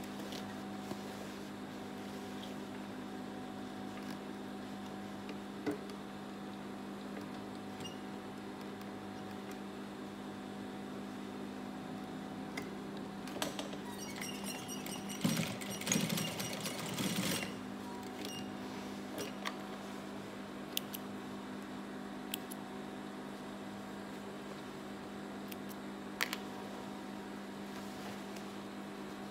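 Gemsy industrial single-needle sewing machine: its motor hums steadily, and about halfway through it stitches for a few seconds. Faint clicks of fabric being handled come and go.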